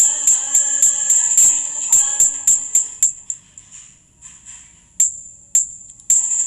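Music with a steady tambourine beat. It thins out about three seconds in, leaving a few lone tambourine strikes near the end.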